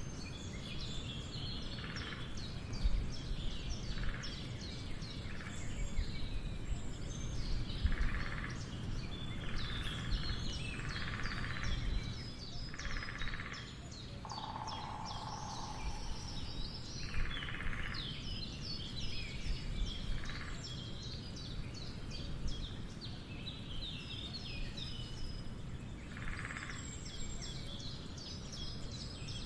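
Woodpecker drumming in short rattling bursts about a second long, recurring every couple of seconds, over many small birds chirping and a steady low background rumble.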